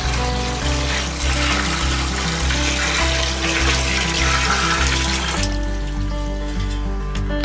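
Background music with a steady bass line, over running water that stops about five seconds in.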